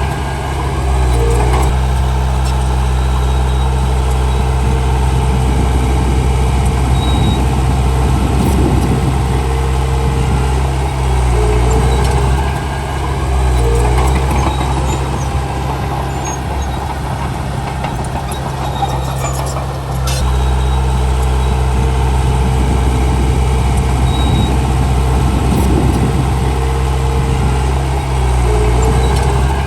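Komatsu D31P crawler bulldozer's diesel engine running under load as it pushes soil, a steady low drone that eases off and picks up again a few times.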